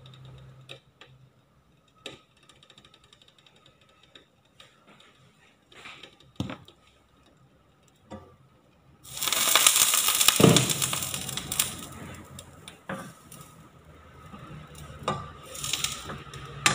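A few light clicks and taps, then about nine seconds in a sudden loud sizzling hiss as the glass lid comes off a hot nonstick frying pan holding steaming water. The sizzle fades over several seconds, with a knock and a few more taps of the lid and turner.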